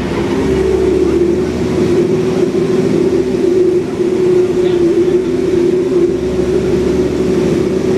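Cummins ISBe diesel engine of an Alexander Dennis Enviro 400 double-decker bus pulling hard after an automatic-gearbox kickdown, with a loud steady whine held over a low engine rumble. It gets louder just as it begins.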